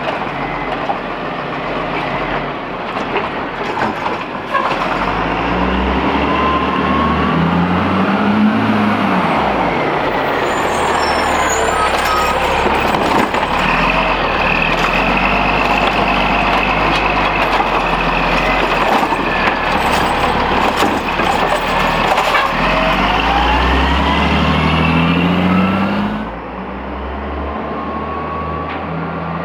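Peterbilt 320 garbage truck's diesel engine revving hard to drive the automated side-loader arm while it works a cart, the revs rising twice, with clanks from the arm and cart. Near the end the sound drops to the truck running steadily farther off.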